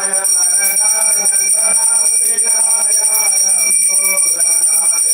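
Puja hand bell rung continuously, a steady high ringing, with voices chanting beneath it.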